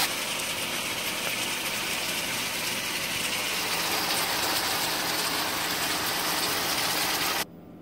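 Chicken pieces sizzling as they brown in a frying pan, a steady dense sizzle that cuts off abruptly near the end.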